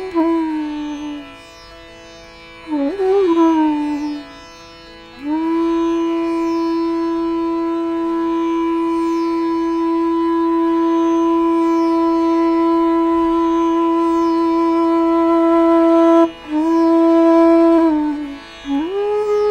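Indian classical-style instrumental background music: a melody that slides and bends between notes over a steady drone, holding one long note for about ten seconds.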